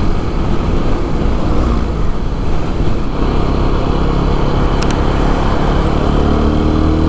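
TVS Apache RTR 200 4V's single-cylinder engine running at road speed under a steady rush of wind and road noise, its note rising gradually over the last couple of seconds as the bike picks up speed.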